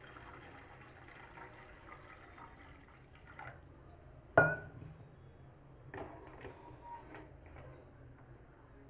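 Water pouring into a steel saucepan, faint, for the first three seconds or so, then a single sharp knock with a brief ring about four and a half seconds in, followed by a few faint knocks.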